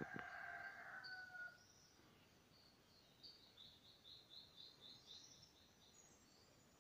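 Faint rooster crowing, one long call falling slightly in pitch at the start, then a small bird's quick run of about eight high chirps a few seconds in.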